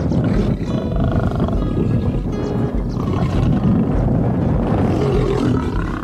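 A lion roaring over background music.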